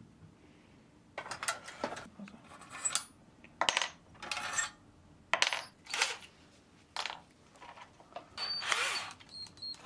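Steel twist drill bits clinking and rattling in a metal drill-bit index case as they are picked through, in a run of short metallic clatters with a ringing edge. Near the end a bit is laid down on a wooden workbench.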